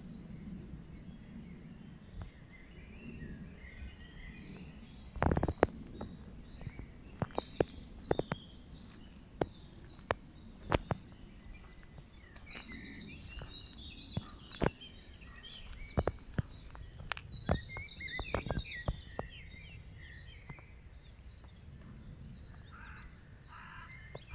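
Birds chirping and singing, with sharp knocks and clicks: a quick cluster about five seconds in, then single clicks scattered until a few seconds before the end.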